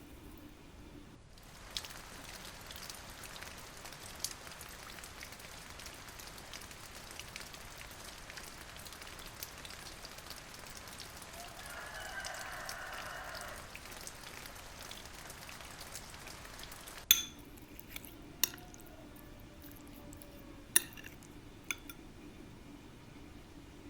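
Rain pattering steadily, with a brief pitched call about halfway through. A little after two-thirds of the way the patter cuts off, and a few sharp clicks follow over a low hum.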